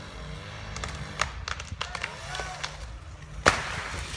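Low engine hum with people's voices and several sharp knocks; the loudest knock comes near the end.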